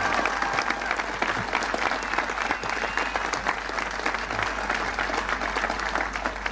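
Large outdoor crowd applauding steadily, with a few whistles near the start.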